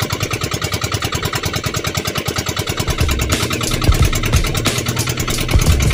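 Boat engine running with a rapid, even beat, the low rumble growing heavier about halfway through.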